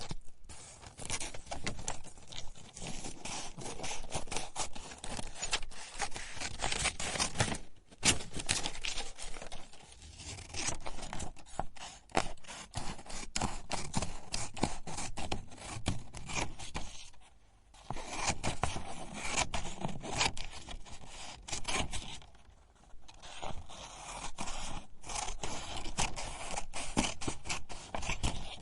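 Scissors cutting paper: repeated crisp snips and scraping slices, in long runs broken by a few short pauses.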